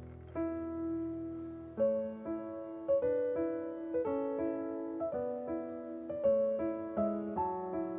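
Background music: a piano playing a melody, a new note or chord struck about twice a second, each ringing and fading.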